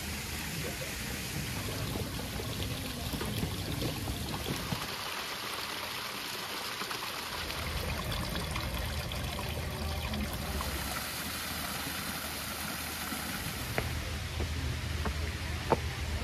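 Steady rush of running water, with two sharp taps near the end.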